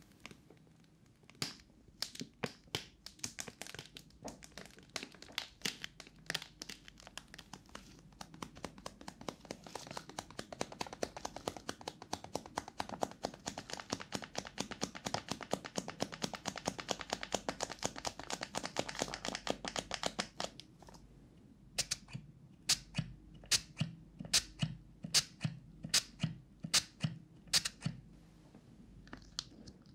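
Plastic zip bag of powdered clay crinkling as it is handled and its contents are poured into a plastic bowl, close to a binaural microphone. From about 22 s in, a trigger spray bottle mists in a run of short sprays, about two a second.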